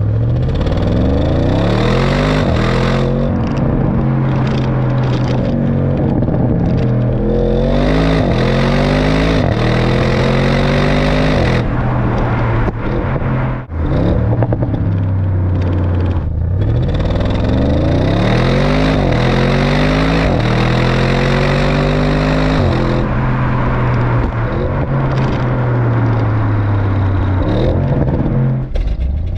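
Audi RS7 C8's 4.0-litre twin-turbo V8 exhaust under hard acceleration: the engine note climbs steeply several times, drops at each upshift, and holds steady at cruising speed in between, with road and wind rush beneath.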